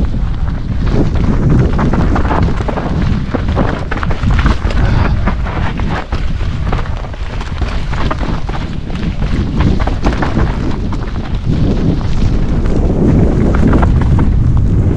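Wind buffeting the camera microphone over the continuous rattle and knocking of a mountain bike being ridden over a rough dirt trail.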